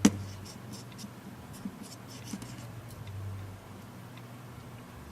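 A sharp click, then faint small clicks and scraping as a small Phillips screwdriver works tiny screws out of a tablet's motherboard, over a low steady hum.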